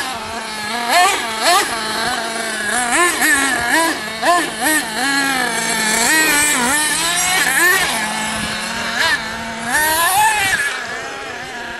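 Small glow-fuel engine of a 1/8-scale nitro RC buggy revving hard and easing off again and again, in a rapid series of rising and falling whines as it is driven over dirt. A steady lower engine tone runs beneath.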